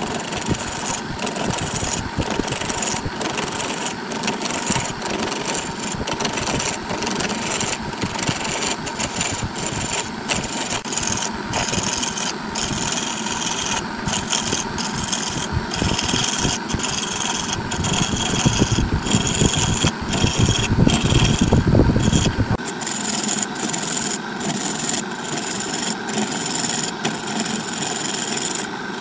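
Wood lathe running while a turning tool cuts into the spinning wood blank, a continuous scraping, shaving sound over the lathe's hum. About two-thirds through, the cut turns heavier and louder with a deep rumble, which stops sharply.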